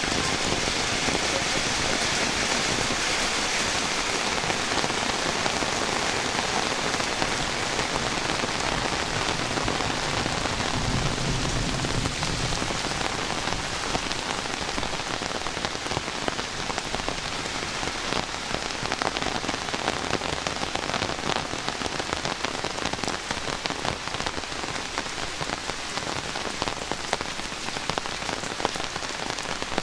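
Heavy rain falling steadily, a dense hiss with many individual drop hits close by.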